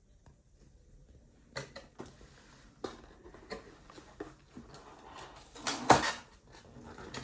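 Packaging being handled: scattered clicks and taps, with rubbing and scraping that is loudest about six seconds in.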